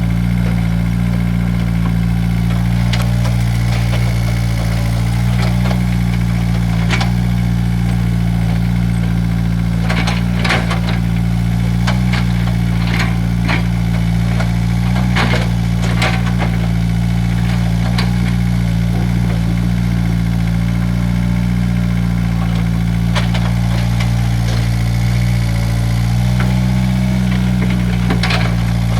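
Excavator's diesel engine running steadily under work, with scattered sharp knocks and clanks from the machine, most of them between about ten and sixteen seconds in and again near the end.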